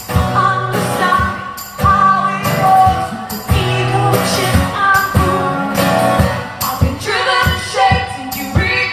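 Live band music: singing over instruments with a steady percussive beat.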